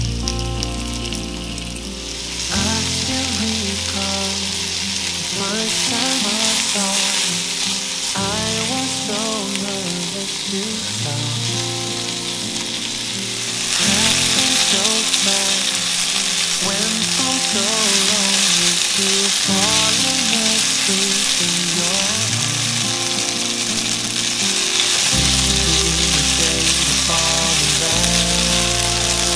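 Sliced pork sizzling in a hot Staub enameled cast-iron frying pan while being turned with chopsticks; the sizzle gets noticeably louder about halfway through.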